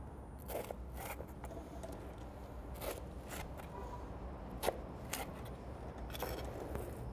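Chef's knife sawing through the crisp, toasted crust of a loaf of pizza bread, with short crunching, crackling strokes about once a second.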